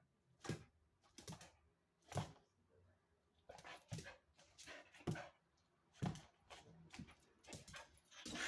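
Dogs playing together: a faint string of short, sharp noises at irregular intervals, about one a second.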